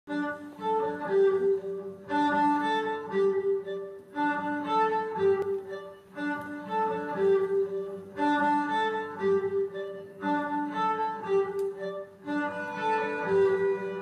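Instrumental music: a short phrase of held notes that repeats about every two seconds.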